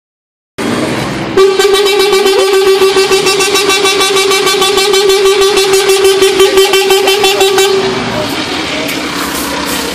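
A fire engine's horn sounding one long, steady blast of about six seconds that wavers rapidly, starting about a second and a half in and stopping near the end, then leaving street noise.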